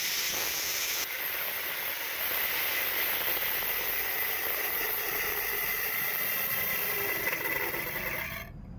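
Angle grinder's abrasive disc grinding down a small metal ball seated in the back of a drill gear, making it smaller: a steady hissing grind with a faint high whine, stopping shortly before the end.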